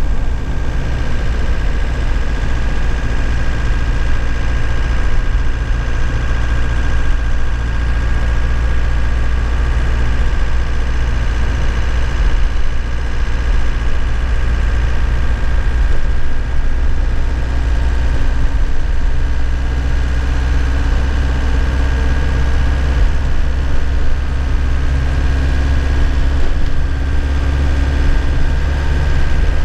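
2001 Nissan Cabstar light truck's engine running steadily while driving, heard from inside the cab with road noise. The engine note shifts slightly near the end.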